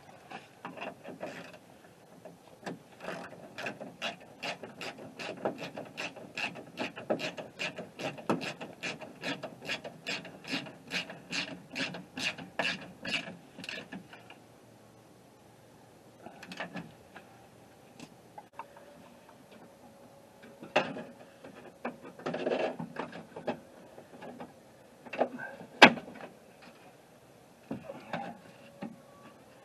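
Ratchet wrench clicking steadily, about three to four clicks a second for some thirteen seconds, then stopping. Scattered knocks and clicks of tools and parts follow, the sharpest near the end.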